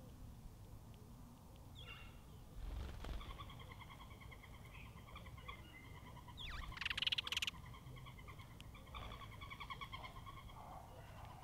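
A large bird's wings flap in a brief, rapid flutter about seven seconds in as it flies onto or off the seed table; this is the loudest sound. Behind it, a repeated trilling call comes in two long, evenly pulsed trills.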